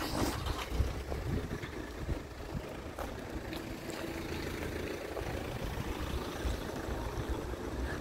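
Steady low rumble and hiss of outdoor background noise, with a faint hum through the middle.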